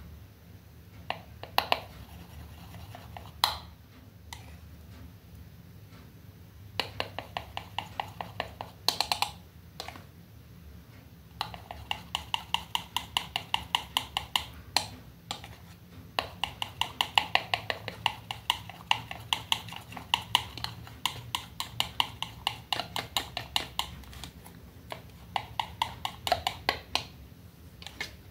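Metal palette knife clicking and scraping against a plastic paint palette as acrylic paint is stirred in its wells: runs of quick, even ticks, several a second, with short pauses between runs.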